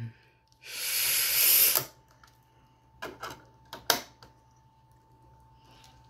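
A hissing rush about a second long, then a few sharp clicks as the lid of a Wonnie portable DVD player is shut over the disc.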